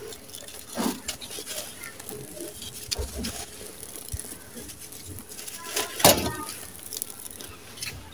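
Dry sand-cement blocks crumbled and crushed in the hands, with loose sand and grit pattering down. Irregular gritty crunches and crackles, the sharpest about six seconds in.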